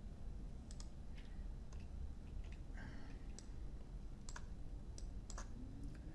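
Irregular clicks of a computer mouse and keyboard, about a dozen, some in quick pairs, over a faint low hum.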